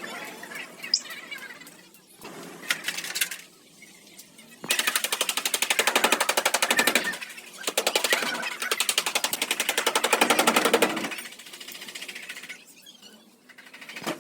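A power tool hammering rapidly against sheet-metal cab bodywork, in two long runs with a short break between. Scattered knocks come before it.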